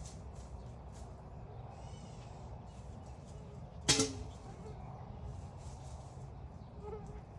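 Outdoor background with a steady low rumble, faint bird chirps about two seconds in, and one sudden sharp knock just before four seconds that is the loudest sound.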